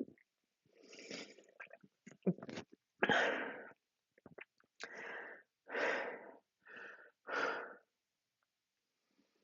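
A woman's short, breathy throat sounds, about seven in a row, each under a second long, with a couple of sharp clicks between the first two.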